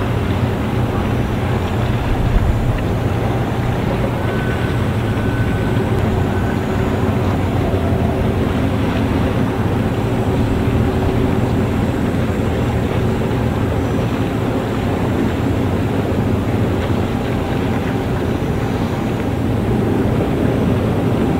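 Steady low drone of a large patrol ship's engines passing close by, over the hiss of its bow wash on the water.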